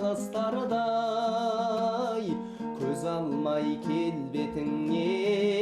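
A Kazakh song: a singer's melody with long, wavering held notes over plucked-string accompaniment.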